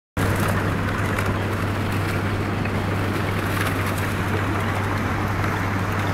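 A vessel's engine runs with a steady low hum while broken river ice floes scrape and crackle against the hull as it moves slowly through the ice.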